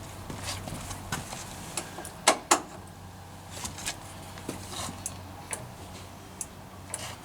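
Small clicks and taps of a tail light unit and its wire connectors being handled on a cardboard box, with two sharp louder clicks a little over two seconds in, over a faint steady low hum.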